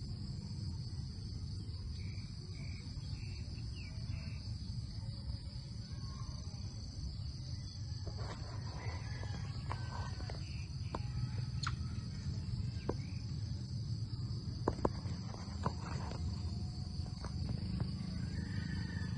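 Steady high-pitched insect drone over a low rumble, with a few short chirps early on and scattered sharp clicks from about eight seconds in.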